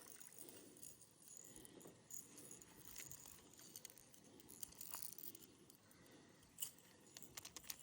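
Faint light metallic clicks and jingles of a fishing lure's hooks and tackle being handled while the lure is sorted out, with a quick run of clicks near the end.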